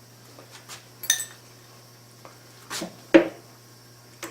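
Metal tools or parts being handled on a milling machine: a light metallic clink with brief ringing about a second in, then two duller knocks near the three-second mark, the second one the loudest.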